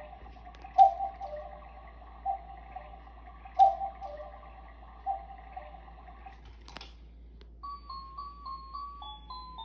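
Cuckoo clock striking: the two-note falling cuckoo call sounds several times, about every second and a half. Near seven seconds there is a sharp click, then the clock's music box starts a tinkling tune.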